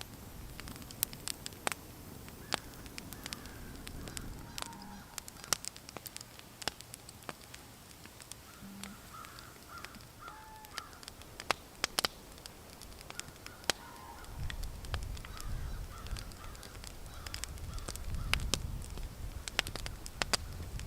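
Wood campfire crackling with sharp, irregular pops, while faint bird calls come through a few times. A low rumble comes in about two-thirds of the way through.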